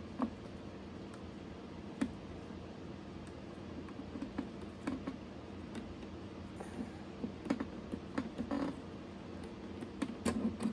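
Scattered light clicks and taps of small clamp and bracket parts being handled and set against a guitar, busier near the end, over a faint steady hum.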